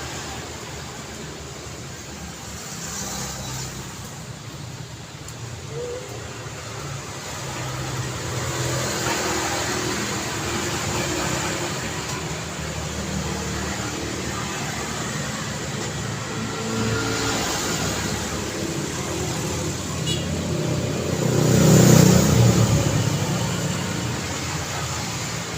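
Road traffic running continuously: engines and tyre noise from passing cars. One vehicle swells up loudly as it passes close by, late on.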